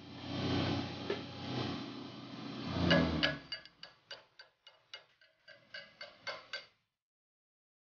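A rushing noise for about three seconds, then a rapid series of sharp metallic taps, about four a second, as a chipping hammer knocks the slag off a fresh stick weld on a steel round bar; the tapping stops suddenly.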